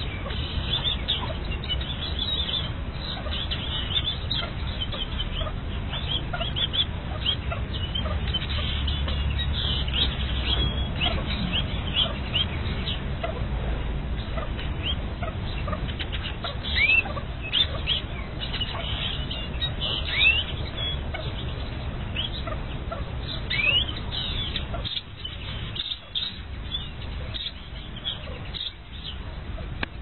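Partridge calling with many short chirps, with a few louder, sharper calls in the second half, over a steady low rumble.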